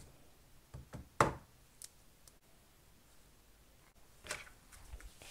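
Handling noise from a phone being moved and repositioned: a few short knocks and clicks, the loudest about a second in, in an otherwise quiet small room.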